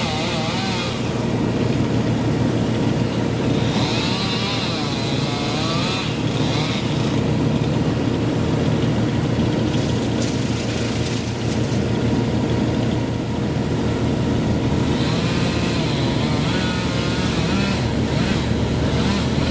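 A large engine running steadily under load, typical of tree-service machinery such as a stump grinder or wood chipper, with a few wavering higher tones over it.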